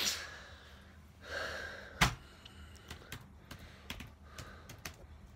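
Handling noise on a handheld phone: a breath, then a sharp knock about two seconds in, followed by a run of light clicks and taps.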